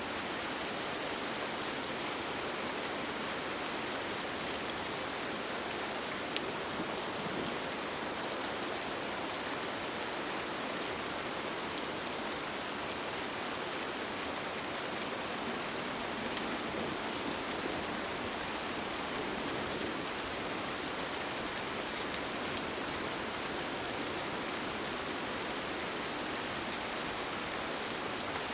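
Steady rain falling on a tent, heard from inside, with a few sharper drop ticks, the clearest about six seconds in.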